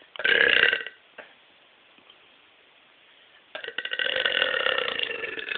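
A woman belching loudly twice: a short burp near the start, then a long, drawn-out croaky belch beginning about three and a half seconds in.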